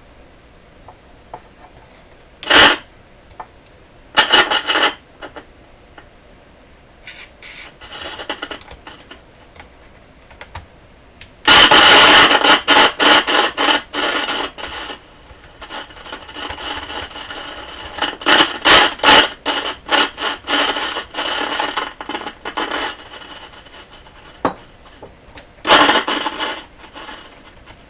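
Loud, harsh crackling and scratching from a Sharp AM/FM transistor radio's speaker as its dirty volume control is worked, spreading freshly sprayed cleaner through it. The crackle comes in irregular bursts, with the longest and densest stretch starting about halfway through.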